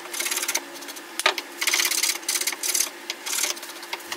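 Hand saw cutting a half lap into a pine 1x4, back-and-forth strokes rasping through the wood in a steady rhythm.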